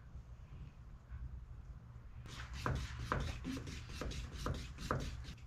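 Wooden paint stick scraping and stirring thick marine body filler (Evercoat Formula 27) in its can, the separated filler being mixed back toward a putty consistency. Short strokes, about two a second, start about two seconds in.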